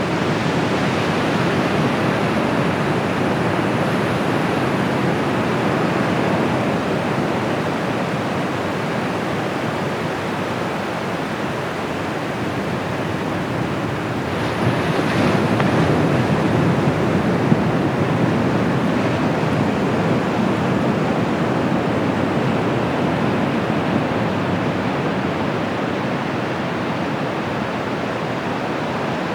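Surf from the Bay of Bengal breaking and washing up the beach in a steady rush, swelling as a larger wave comes in about halfway through.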